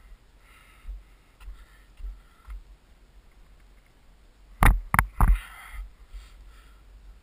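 Handling and walking noise from a hiker on rocky gravel: soft scuffs and thumps, then three loud, sharp knocks in quick succession about four and a half seconds in.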